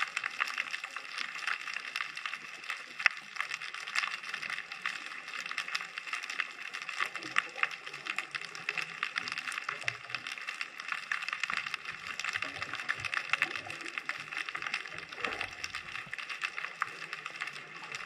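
Underwater ambient sound: a dense, steady crackle of countless small clicks, with almost nothing in the low end.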